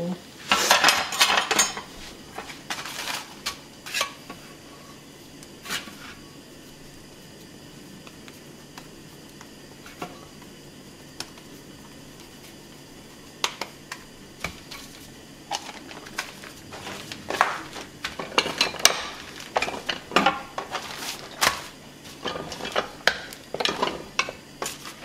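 Kitchen handling sounds: metal utensils and cookware clattering for about the first two seconds, then a few scattered clicks. After a quiet stretch in the middle, a metal tortilla press is opened and closed over masa, giving repeated clanks and clicks for the last ten seconds or so.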